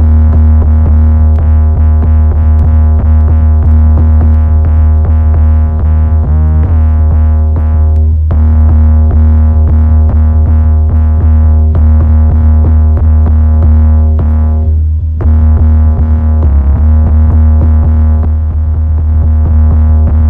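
Heavily distorted 808 bass synth, built from Logic Pro X's stock plugins, playing a deep sustained low note with many overtones and quick ticks on top, briefly re-struck a few times. The 808 bus is clipping hard, largely from a compressor in soft-clip mode.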